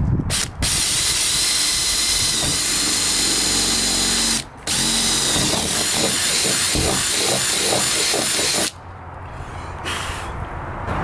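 Cordless drill boring a pilot hole through a sailboat's fiberglass deck. It runs steadily in two stretches of about four seconds each, with a brief stop between them, and cuts off about two seconds before the end.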